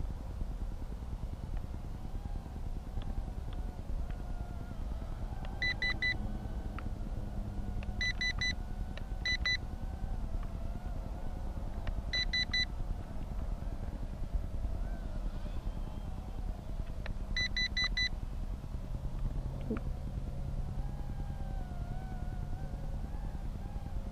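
Thin whine of a micro quadcopter's motors, wavering up and down in pitch with the throttle, over a steady low rumble. Five short strings of rapid high electronic beeps break in through the middle.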